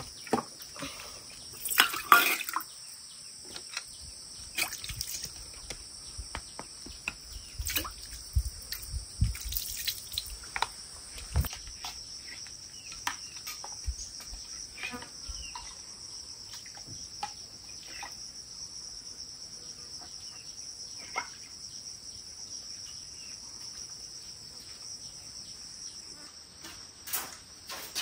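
Insects chirring steadily and high-pitched, with scattered light clinks, knocks and splashes of liquid from kitchen work with bowls and utensils.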